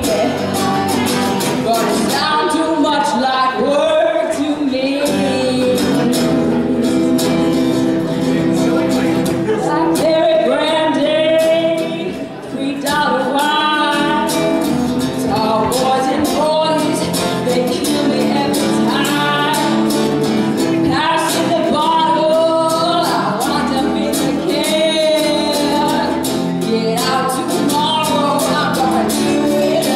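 A woman singing lead into a microphone with a live band playing behind her. The level dips briefly about twelve seconds in.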